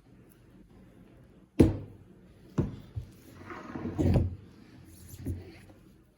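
Handling noise from a rocket motor being assembled: a sharp knock about a second and a half in, the loudest, then a few lighter knocks and a stretch of rubbing as the aft closure and nozzle are threaded into the Aerotech 75 mm motor case by hand.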